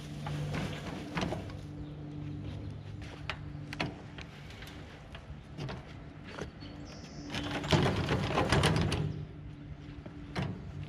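Compost spilling out of a tipped-up wheelbarrow into a raised garden bed, with scattered knocks from the barrow and a louder rush of sliding material about eight seconds in. A steady low hum runs underneath.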